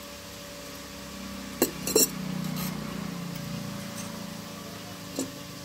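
Small hand-forged steel parts clinking together as a bent steel ring is worked with pliers against a steel blade on an anvil: a quick cluster of sharp clinks about a second and a half in, and one fainter clink near the end, over a steady low hum.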